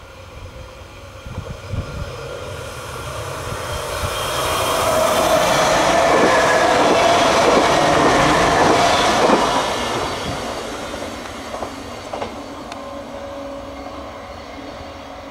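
Stadler GTW articulated railcar passing at speed: its running noise builds as it approaches, is loudest about halfway through with a steady whine over the rumble of wheels on rail, then fades as it moves away, with a few sharp wheel clicks near the end.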